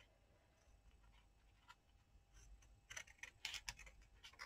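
Near silence, then a few faint light taps and rustles of paper being handled on a craft table, starting about three seconds in.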